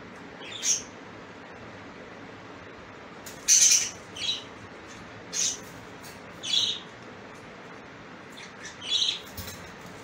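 Pet parrot giving short, high-pitched calls, about six in all, the loudest and longest about three and a half seconds in, over a steady hiss.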